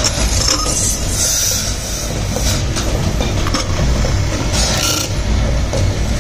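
Lathe motor running steadily while a hand-held cutting tool scrapes a brass diya piece spinning in a wooden chuck, giving a low hum under irregular bursts of high hissing scrape and a few light clicks.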